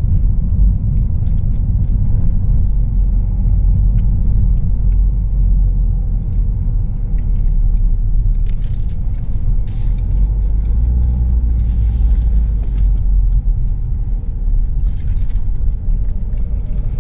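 Steady low rumble of road and engine noise heard from inside the cabin of a moving Ford Focus, with a few faint ticks midway.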